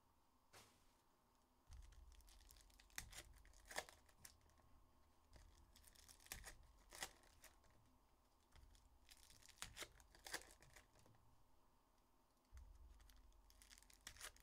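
Foil wrappers of Panini Illusions football card packs being torn open and crinkled. The rips and crackles are faint and come in scattered clusters, with a cluster near the end.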